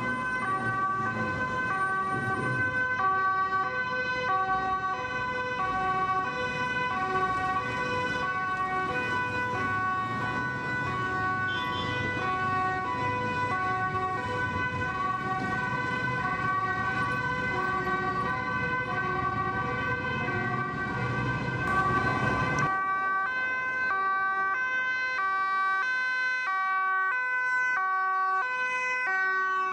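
Two-tone sirens of Dutch police cars on urgent response, stepping back and forth between a high and a low pitch, with a steady high tone under them. Street traffic rumbles beneath until it drops away sharply about 23 seconds in.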